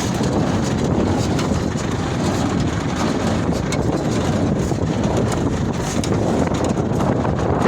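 Claas Markant small square baler running behind a tractor: steady mechanical noise with irregular clicks and knocks, with wind buffeting the microphone.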